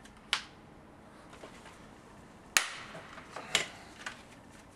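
A hand cutting tool snipping FabricMate wall-fabric track for a 45-degree cut: a few sharp clicks and snaps, the loudest about halfway through, with a fainter one near the end.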